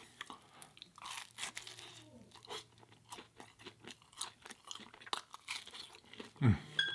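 Close-miked chewing of plant-based food: irregular wet mouth smacks and crunchy bites. A louder low sound comes near the end.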